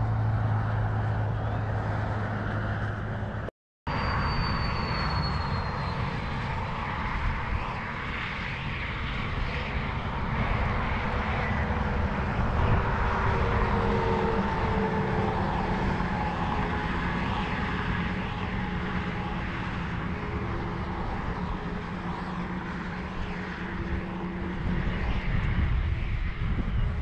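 A low steady hum, then the sound cuts out for a moment. After that comes the steady roar of highway traffic, with an airplane's drone slowly falling in pitch as it passes over.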